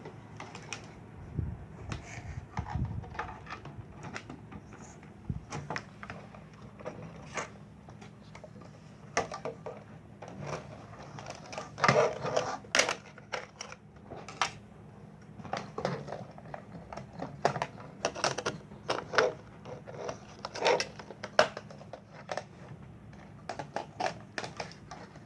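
Irregular clicks, taps and rattles of plastic toy parts being handled and fitted together, with a few louder clusters of clicks partway through.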